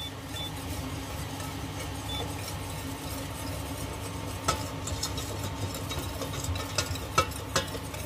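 A utensil stirring a roux of flour and melted margarine in a pot, with a steady soft scraping and a few sharp clinks against the pot in the second half.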